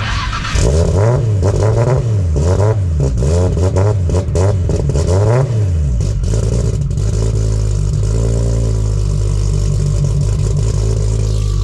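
Nissan R32 Skyline GT-R's turbocharged RB26/30 straight-six being revved several times in quick up-and-down blips, then settling to a steady idle about halfway through.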